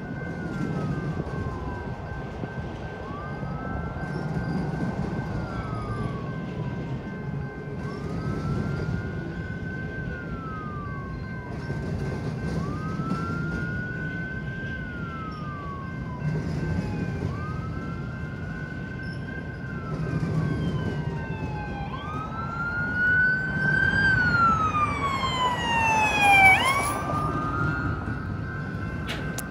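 Emergency vehicle siren in a slow wail, rising and falling about every two and a half seconds. Near the end it changes to quicker sweeps and a loud falling yelp. A steady low rumble runs underneath.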